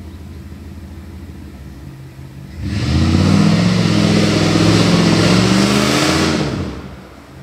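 Jeep Grand Cherokee engine idling, then revved hard for about four seconds as the 4x4 pulls up out of a mud pit, its tyres churning through the mud, before the throttle eases off near the end.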